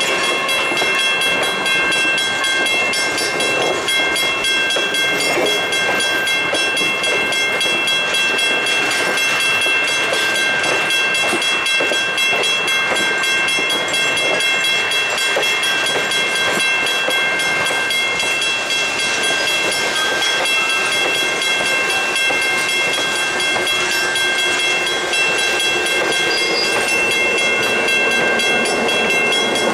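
Passenger coaches rolling past on the rails, their wheels clicking over the track, with a steady high-pitched ring held throughout. Near the end the trailing diesel locomotive, Everett Railroad #1712, comes by and its engine adds a low drone.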